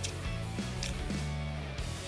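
Background music: guitar over a steady drum beat and bass.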